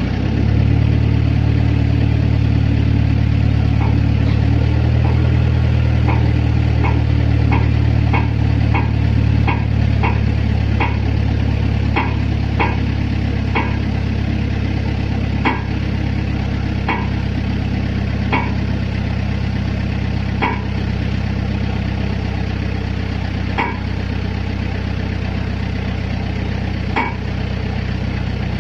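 Engine-driven hydraulic power unit of a concrete pile-pressing rig running steadily, its note swelling at the start and dipping slightly about four seconds in. Light, sharp ticks come every second or so through most of it.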